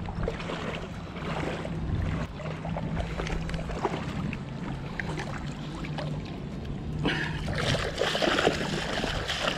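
Shallow water lapping and sloshing at the shore over a steady low hum; from about seven seconds in, louder splashing as feet wade through the shallows.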